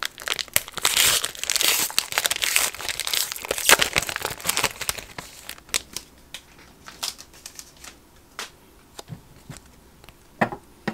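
Foil trading-card pack being torn open and crinkled, dense crinkling for about the first five seconds, then only scattered light clicks.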